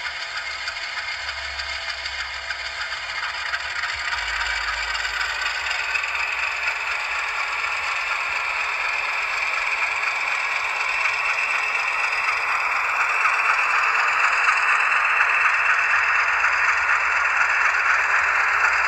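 Sound decoder in an HO-scale Rapido diesel locomotive playing its diesel engine running sound through the model's small speaker as it rolls along the track, growing steadily louder.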